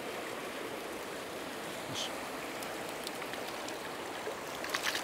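Shallow, rocky river rushing steadily through a fast riffle of white water, with a few faint sharp clicks near the end.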